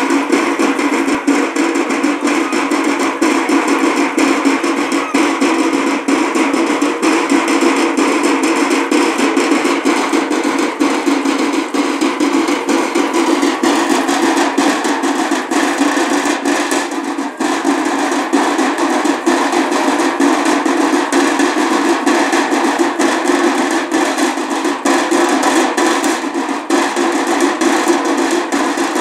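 Loud, continuous street-procession drumming: rapid, clattering strokes go on without a break, with a brief dip about two-thirds of the way through.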